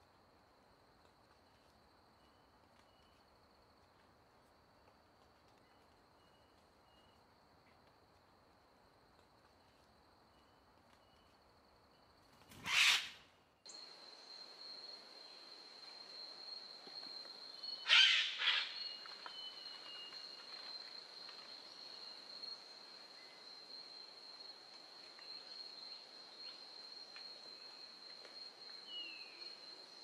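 Rainforest ambience: a steady high-pitched insect drone with faint, scattered short bird calls. Two loud, harsh, brief bursts of noise break in, one a little before halfway and another a few seconds later, and the insect drone is louder after the first.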